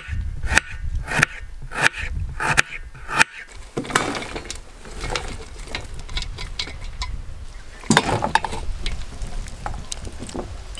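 Kitchen knife slicing through red onion and striking a steel plate, one sharp cut about every two-thirds of a second. After about three seconds come quicker, lighter clicks.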